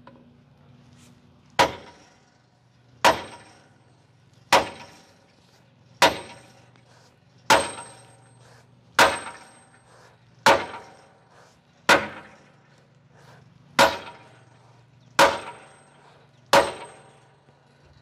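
Sledgehammer striking a bolt set against a semi truck fifth wheel's mounting pin to drive the pin out of its bracket: eleven heavy metal-on-metal blows about a second and a half apart, each ringing briefly.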